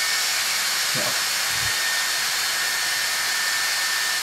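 Small electric motor of a toy bubble-robot kit running in its plastic gearbox with a steady high whine and hiss, being test-run. Near the end it is switched off and the whine glides down as it winds down.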